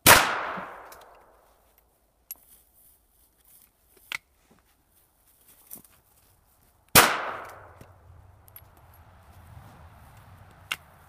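Two 9mm rifle shots from a Chiappa M6 break-action survival rifle fired through a caliber conversion sleeve in its 12-gauge barrel, one at the very start and one about seven seconds in, each echoing away over about a second. A few light clicks fall between them.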